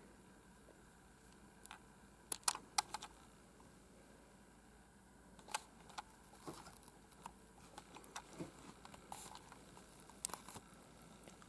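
Quiet room tone broken by scattered faint clicks and soft rustles from handling of a handheld camera and shifting fabric.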